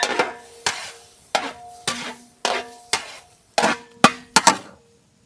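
Wooden spatula knocking and scraping against a large metal pan while spiced minced mutton is stirred, about two knocks a second, the pan ringing briefly after each knock.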